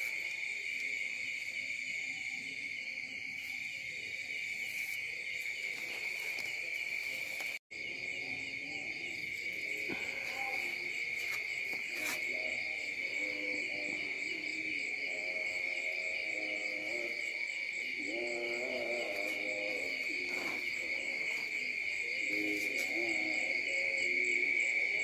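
Night insect chorus of crickets, a steady high trilling with rapid pulses, with fainter wavering lower calls beneath it from about ten seconds in. The sound cuts out for an instant about a third of the way through.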